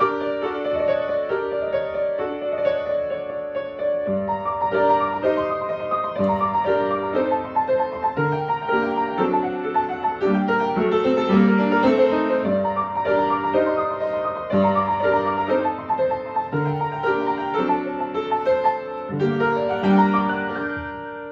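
Piano playing a classical piece, a flowing line of notes with lower bass notes joining about four seconds in.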